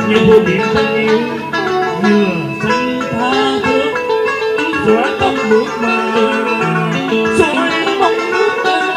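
Tân cổ (cải lương-style) music played loudly through a sound system: plucked guitar lines with sliding, bending notes over a steady backing.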